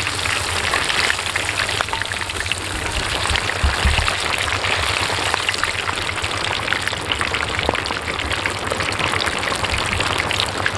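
A large piece of marinated fish deep-frying in very hot oil in a big iron karahi: a dense, steady sizzle and crackle.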